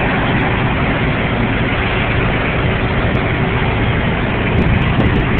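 Steady low rumble of idling heavy vehicle engines, with road noise.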